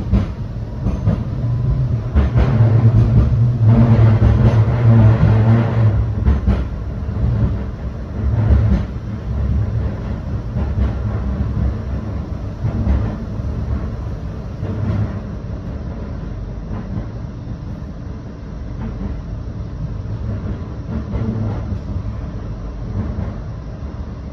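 Blackpool tram running along the line, heard from on board: a steady low rumble of wheels on rail with occasional knocks, loudest for the first six seconds or so and then settling.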